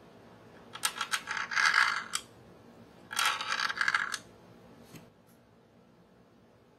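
Metal screwdriver tip scraping and tapping over the plastic and metal parts of a 1:12 diecast Kawasaki Ninja H2R model. It comes as two bursts of rapid clattering clicks, each about a second long, followed by one faint click.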